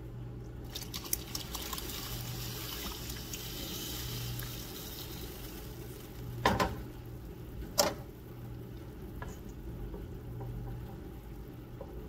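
Cooked peaches in thick syrup poured from a pot into a baking dish: a wet, sloshing pour lasting about six seconds. Two sharp knocks follow about a second apart.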